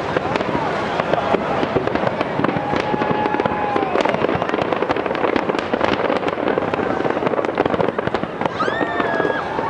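A fireworks display: a dense, continuous barrage of bangs and crackling shells, with a few faint whistling glides mixed in.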